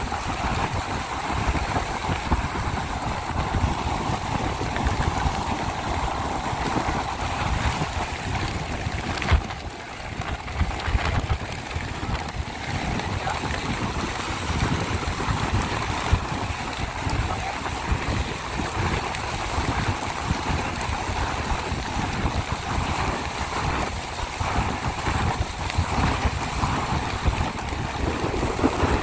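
Passenger speedboat under way: steady engine drone mixed with rushing water and wind, with one sharp knock about nine seconds in.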